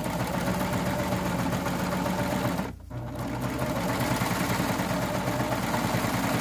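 BabyLock Triumph serger running at speed while stitching a seam, stopping for a moment just under three seconds in, then running on.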